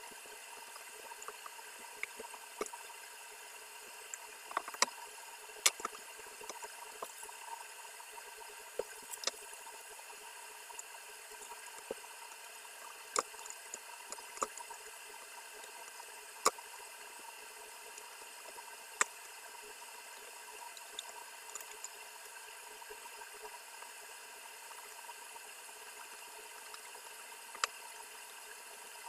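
Scattered sharp clicks and taps at irregular intervals over a steady faint hiss: small hand tools and plastic electrical fittings being handled while wiring a socket.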